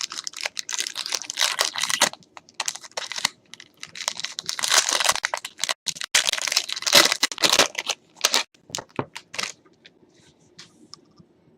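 Plastic wrapping crinkling and tearing in quick irregular strokes as a sealed trading-card box and its pack are torn open. A few light clicks follow in the last few seconds.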